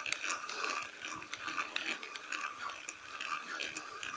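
Fishing reel working under a hooked fish: a faint steady mechanical whir with many small irregular clicks.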